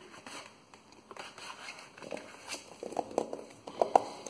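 Hands handling a Blu-ray steelbook and its slipcase: faint rubbing and sliding, then a few light clicks and taps from about halfway, the loudest near the end.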